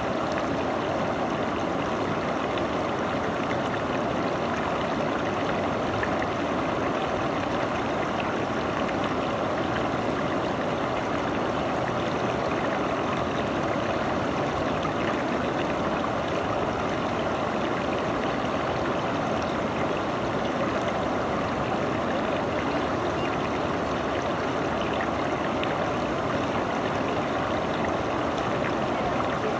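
River water running in a steady, unbroken rush.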